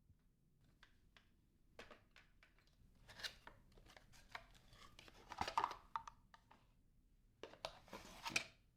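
Hands handling vacuum parts and packaging: a string of light clicks and rustles, with louder bursts about five and a half and about eight seconds in.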